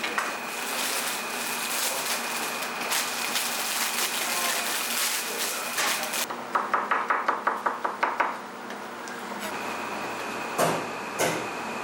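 Kitchen prep at a counter: a steady hiss, then a quick run of about a dozen sharp knocks lasting under two seconds, then two louder single knocks near the end.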